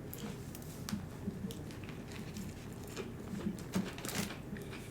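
Quiet chewing and mouth sounds of someone eating a bread roll with fried chicken close to the microphone, with scattered soft clicks.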